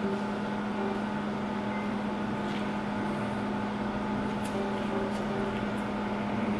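Steady mechanical hum of restaurant equipment, a low drone with a fainter higher tone above it. A few faint crunches come through as crispy fried chicken is chewed.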